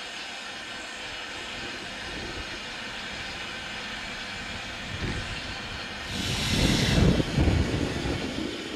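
Steam locomotive working past on the line: a steady rushing sound, then its exhaust beats and rush grow loud about six seconds in and ease off near the end.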